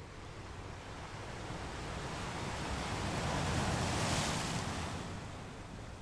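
Sea waves washing onto a beach: a steady surf hiss with one wave swelling louder from about a second in, peaking near four seconds and fading.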